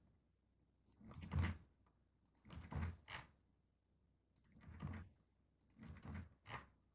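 Faint clusters of computer keyboard and mouse clicks, four short bursts about a second and a half apart, as image files are copied and pasted one at a time.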